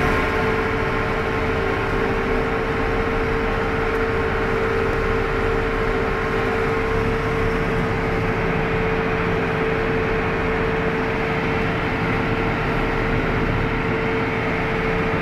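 New Holland TM150 tractor's diesel engine and drivetrain heard from inside the cab while cruising in 18th forward gear, running at an even pace with a steady whine through it.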